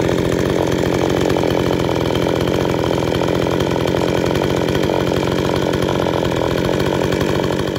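Brand-new Perla Barb 62cc two-stroke chainsaw running steadily at idle on its first ever fuel, the engine note unchanging.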